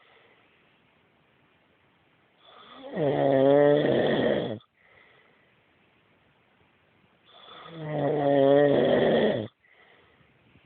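A man snoring loudly in his sleep: two long, rasping snores about five seconds apart, with only faint breathing between them.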